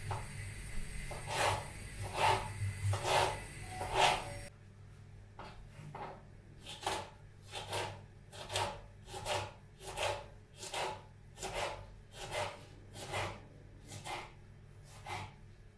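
Rhythmic rubbing or scraping strokes: four louder ones, then a steady run of lighter strokes a little more than one a second.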